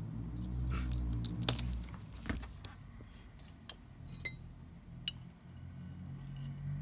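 Scattered light clicks and clinks of a plastic measuring spoon and kitchen utensils against glass bowls on a table, about seven in all. The loudest comes about one and a half seconds in, and one a little after the middle gives a brief glassy ring. A low steady hum runs underneath.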